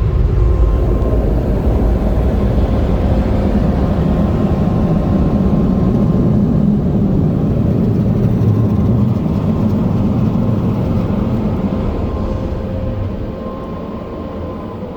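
Belanger air cannon dryer blowers, fitted with older motors, running with a steady loud roar and a faint motor hum, fading slowly near the end.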